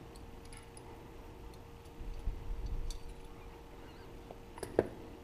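Light metallic clicks and handling noises as the float hinge pin and float arm are worked out of a Mikuni carburetor body, with one sharp click near the end.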